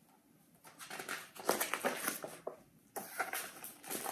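Paper rustling and crinkling as the pages of a large picture book are handled and turned.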